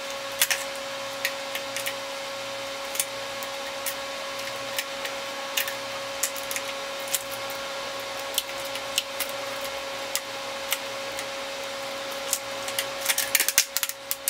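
Tubeless rim tape being pulled off its roll, stretched and pressed into a bicycle wheel's rim bed. Scattered small crackles and clicks, coming thicker near the end, sit over a steady background hum.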